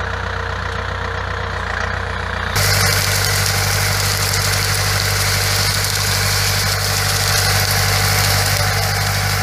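Compact tractor's engine running steadily while it drives a rotary brush weeder through the soil between vine rows. About two and a half seconds in the sound jumps louder, with a dense hiss of the spinning brushes churning dry earth added over the engine hum.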